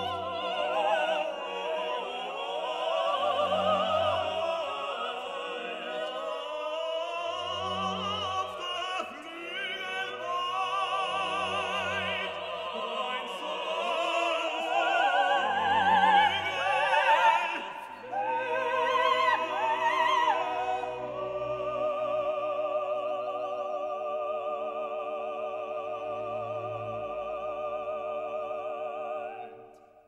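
Background classical music: operatic singing with strong vibrato over orchestral accompaniment, with low bass notes every four seconds or so. About two-thirds of the way through it settles into long held chords, then fades out at the end.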